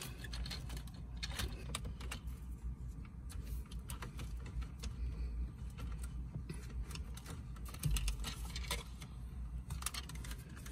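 Small plastic clicks and rattles, irregular and scattered, as a BMW F30 dashboard trim panel and its wiring connectors are handled and worked loose, over a steady low rumble.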